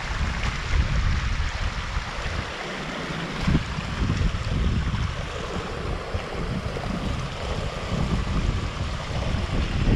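Wind buffeting an action camera's microphone in gusts: a low rumbling that swells and drops, over a steady rushing hiss.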